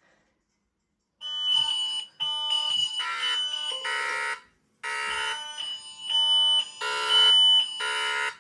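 Ring Alarm fire alarm set off from the keypad, sounding a loud electronic alarm tone made of several steady pitches at once. It starts about a second in and repeats in blocks of a second or two with brief breaks between them.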